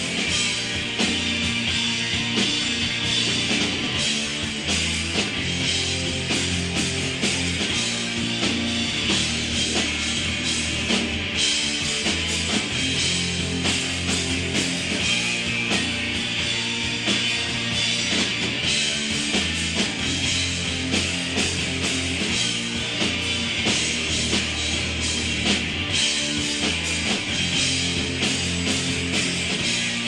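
Rock band playing live: electric guitar, bass and drums, with frequent drum hits over sustained bass and guitar notes.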